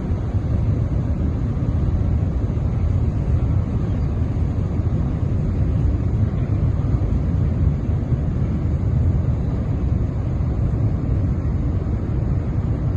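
A steady, noisy low rumble with wind buffeting the microphone.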